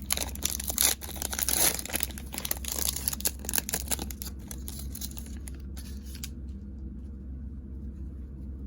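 A 2022 Mosaic football card pack wrapper being torn open and crinkled, a dense crackle of tearing and crumpling for about four seconds that then dies down to a few faint ticks.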